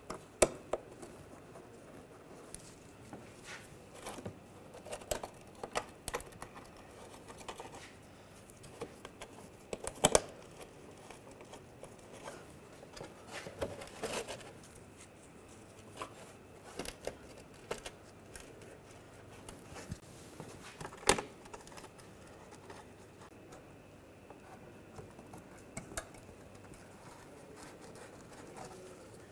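Irregular clicks, taps and rustling of gloved hands fitting a car's underbody panel and starting its fasteners by hand, with a few sharper knocks about half a second, ten seconds and twenty-one seconds in.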